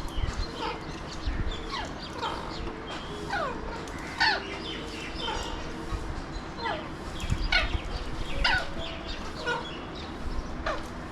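Alexandrine parakeets calling over and over, harsh calls that each drop steeply in pitch.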